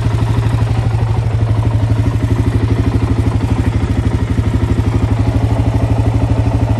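Arctic Cat DVX400 ATV's single-cylinder four-stroke engine idling steadily, with an even, rapid pulse of about a dozen beats a second.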